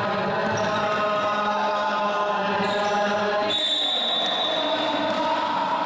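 A basketball bouncing on a gym floor under a steady droning chant of held tones that changes pitch about three and a half seconds in.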